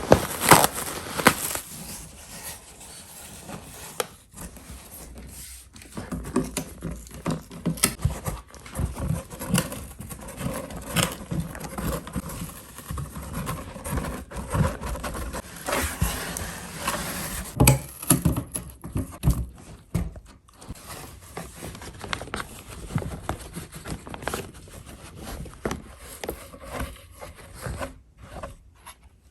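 Plastic air-cushion packaging crinkling, crackling and scraping in irregular bursts as a dog plays with and attacks it.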